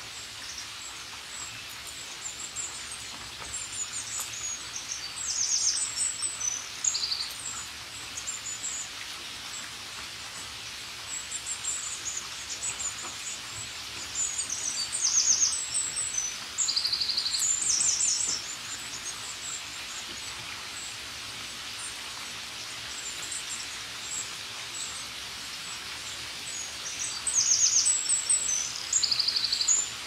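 Steady rain hiss with small songbirds chirping high-pitched calls. One song phrase, a fast trill followed by a short steady note, comes three times: a few seconds in, mid-way and near the end.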